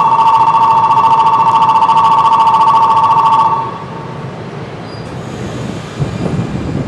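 Station platform departure bell ringing loudly and steadily as two close high tones with a fast trill, stopping about three and a half seconds in: the signal that a train is about to leave. After it, a lower rumble from the standing Series 115 electric train, with a thump about six seconds in.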